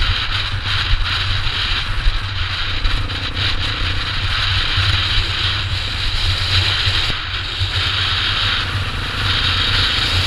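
Honda CRF230F dirt bike's single-cylinder four-stroke engine running steadily under way, with wind rushing over the camera microphone.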